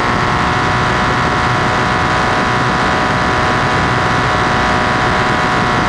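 Loud, steady vibrating buzz from the loose swivel-lock tab of a GoPro 360° swivel handlebar mount, shaken by engine vibration from a Yamaha Raptor 700R ATV under way. The buzz is so loud that it drowns out the quad's engine underneath.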